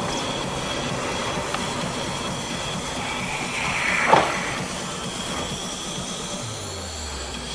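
Steady rumbling travel noise of a moving vehicle, with one brief, sharp, louder sound about four seconds in.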